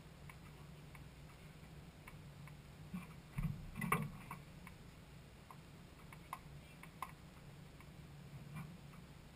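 Scattered light clicks and knocks from someone's hands working inside the cabin of a parked race car, the loudest two about three and a half and four seconds in, over a faint low steady hum.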